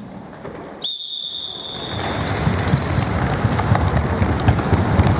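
A whistle sounds about a second in, one long high blast that fades, as the signal to go. A crowd of children sprints off across a sports hall floor, a rush of running footsteps and shoe squeaks that grows louder.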